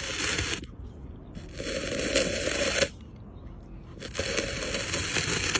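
Wooden stick scraping through gravelly dirt in three strokes, each about a second and a half long: one ends about half a second in, another runs through the middle, and the third starts near the end.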